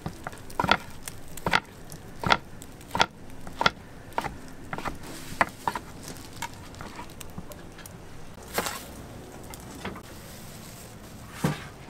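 Large kitchen knife slicing a thick egg-roll gimbap, each cut ending in a sharp knock on the wooden cutting board, about one stroke every two-thirds of a second. After about six seconds the strokes give way to a few scattered knocks.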